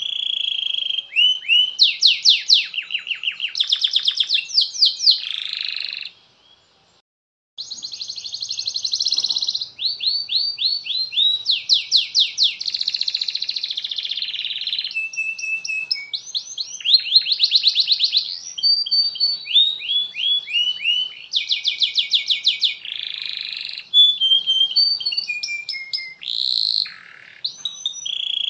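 Domestic canary singing a long song of fast rolling trills and rapidly repeated chirped phrases. It breaks off about six seconds in for a second or so, then carries on.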